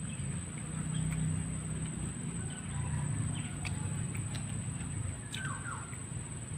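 Forest ambience: a steady high-pitched insect drone with scattered faint clicks over a low rumble, and one short whistled bird call about five seconds in.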